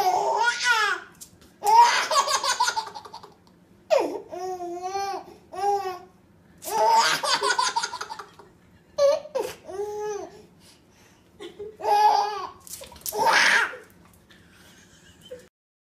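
A baby laughing hard in repeated bursts, each a second or so long with short pauses between, with high, squealing peaks in some bursts; the laughter dies down near the end.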